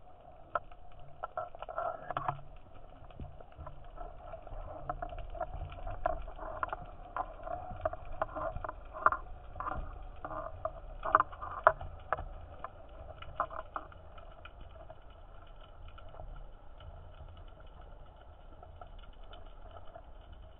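Underwater sound picked up by a diver's camera: steady low water noise with scattered sharp clicks and knocks, most frequent through the first two-thirds and thinning out near the end.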